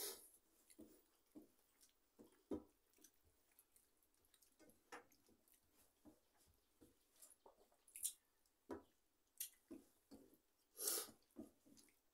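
Faint eating sounds of people eating rice by hand from steel plates: scattered short clicks and wet smacks from fingers working food against the metal plates and from chewing, at irregular intervals.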